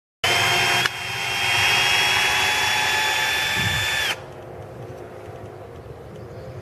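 Bosch cordless drill/driver running in reverse, backing a long screw out of a wooden strip, with a steady high motor whine. It starts suddenly and stops sharply about four seconds in.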